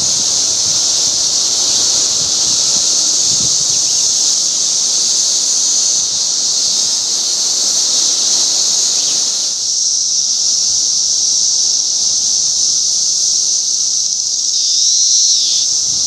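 Chorus of periodical cicadas: a loud, steady, high-pitched hiss. It swells briefly near the end with a nearer call that dips in pitch.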